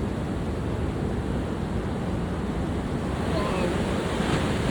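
Heavy ocean surf from a hurricane swell, a steady wash of breaking waves, with wind buffeting the microphone.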